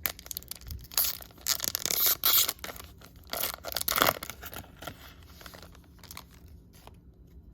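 A baseball card pack wrapper being torn open and crinkled, in a run of crackling tears over a few seconds. Quieter rustling of handling follows.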